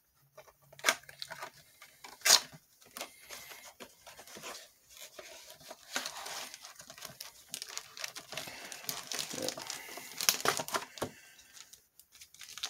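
A small cardboard model-kit box being opened by hand: a couple of sharp snaps in the first few seconds, then a long run of tearing and crinkling packaging, busiest from about the middle until a second before the end.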